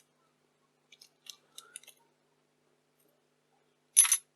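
Faint small clicks as the infrared filter is worked off the camcorder's CCD mount, then one short, sharp snap about four seconds in.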